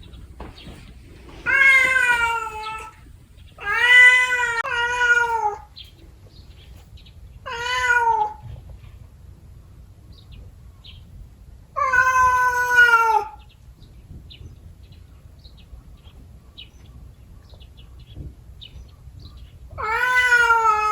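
Cat yowling in a territorial standoff with another cat: five long, drawn-out wails a few seconds apart, each dropping in pitch at its end.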